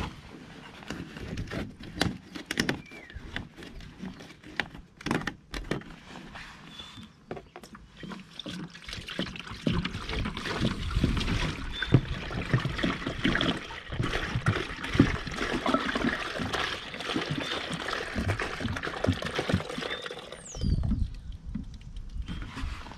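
Containers being handled with scattered clicks and knocks, then a steady stream of liquid pouring for about twelve seconds as coolant concentrate and deionised water are mixed. The pour stops a couple of seconds before the end, followed by a low knock.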